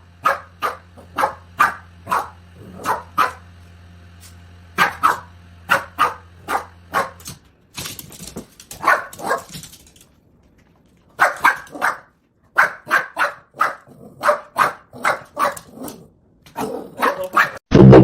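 A dog barking in runs of short, sharp barks, about two a second, with brief pauses between runs. A low steady hum lies under the first half.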